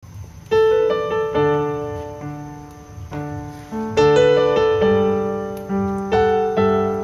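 Background piano music: struck notes and chords, each fading away before the next, at a gentle, unhurried pace.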